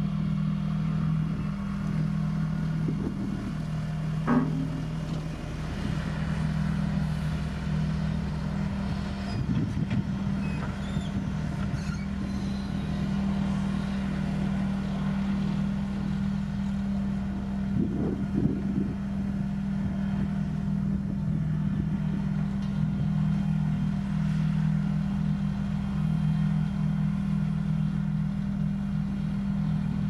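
Caterpillar bulldozer's diesel engine running with a steady drone, with a few short knocks, the sharpest about four seconds in and another near eighteen seconds.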